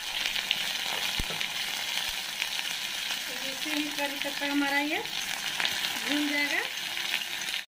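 Curry leaves sizzling in hot oil with mustard seeds and dried red chillies in a small tadka (tempering) pan, stirred with a spoon: a steady frying sizzle that stops abruptly near the end.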